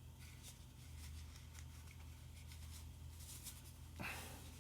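Faint rustling and handling of packaging as a guitar pedal is taken out of its box, with a slightly louder scuff about four seconds in, over a low steady hum.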